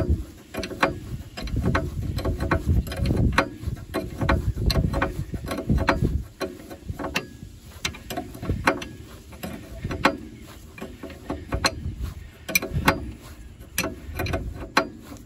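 Hand tools working a fastener on a Mercedes front suspension during removal of a stuck lower ball joint: irregular ratchet-like metal clicks and knocks, about two a second, over low rumbling handling noise.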